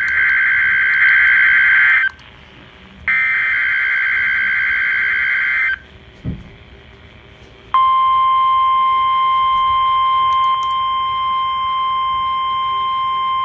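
NOAA Weather Radio's EAS/SAME header: two buzzy bursts of warbling data tones, each nearly three seconds long with a short gap between them. About eight seconds in, the steady 1050 Hz warning alarm tone starts, the one that sets off tone-alert receivers during the required weekly test.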